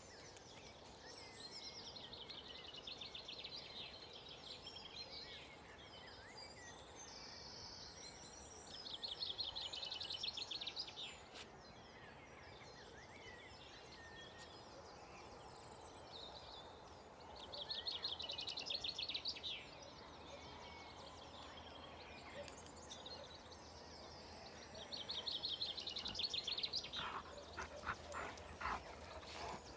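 Dawn chorus of wild songbirds: many birds chirping and singing at once, with one bird repeating a loud, fast trilling song about two seconds long, four times, every seven or eight seconds. A few short, lower calls join in near the end.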